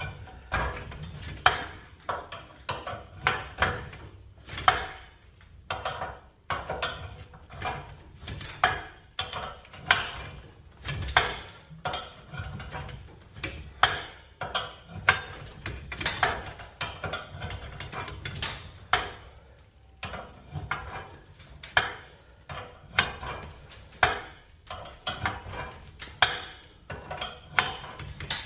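Metal tools and hardware knocking and clanking irregularly during work on garage door torsion springs, about one to two sharp knocks a second, over a steady low rumble.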